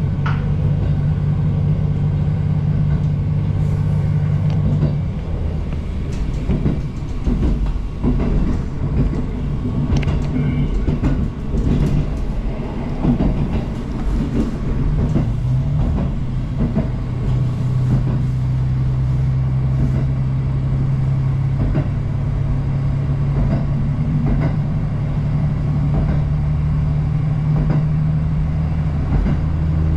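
Diesel train running along the line: a steady low engine drone, which eases about five seconds in while wheel clatter and knocks over the rails come to the fore, then settles back into a steady drone in the second half.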